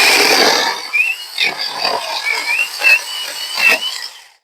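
Battery-powered electric chainsaw running and cutting through a small log, its motor whine wavering in pitch as the chain loads up. It cuts off shortly before the end.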